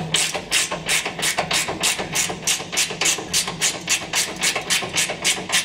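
Hand ratchet clicking in a fast, even rhythm, about five clicks a second, as it runs a nut onto the adjustable panhard rod bolt; the clicking stops just before the end.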